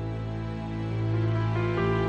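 Instrumental background music with long held notes that shift in pitch every second or so.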